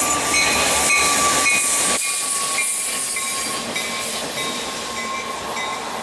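Norfolk Southern EMD SD60 diesel locomotive passing close by, with its engine note, rail noise and a steady high-pitched whine. The low rumble drops away after about two seconds and the sound fades as the locomotive moves off.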